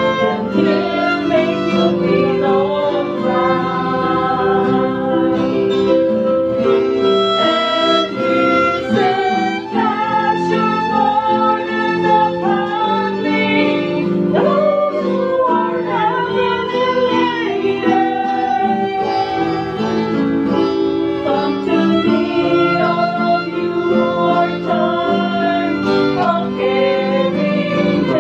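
Violin played with a bow, a continuous melody with gliding and sustained notes over steadier lower accompaniment.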